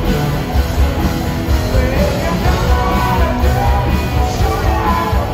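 Live hard rock band playing loud: distorted electric guitar over drums and bass, with a male voice singing. Heard from within the arena audience.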